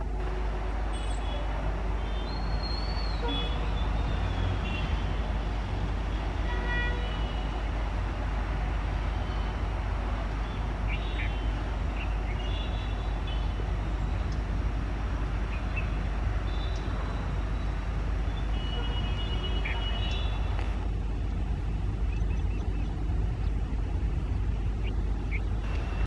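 Steady traffic rumble from motorbikes and scooters waiting at a railway crossing, with short scattered high-pitched horn toots.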